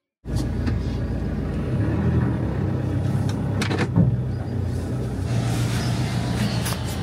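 Campervan engine running and road noise as the van drives, with a couple of brief knocks about halfway through.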